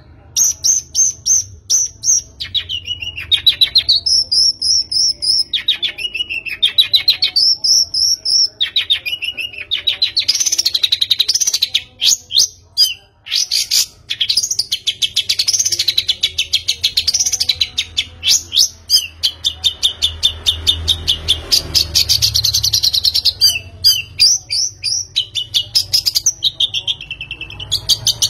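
A bird singing: fast, high-pitched trills that swoop down and back up in pitch, repeated over and over with brief pauses.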